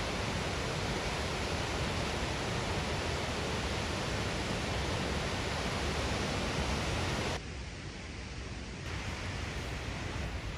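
Canim Falls rushing, a steady, even roar of falling water. About seven seconds in it cuts abruptly to a much quieter hiss.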